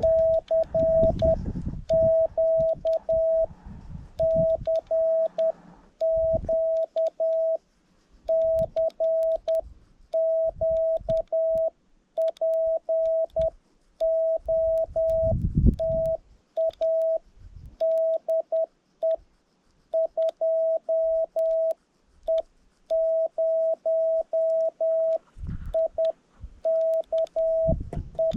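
Morse code (CW) from an HF amateur radio transceiver: a single steady, mid-pitched beep keyed on and off in dots and dashes, with short gaps between characters and words. Occasional low rumbles sound under it, the strongest about halfway through.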